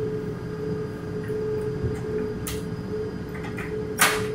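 S-Bahn train running slowly: a steady hum over a low rumble inside the carriage, with a few light clicks and one sharp click about four seconds in.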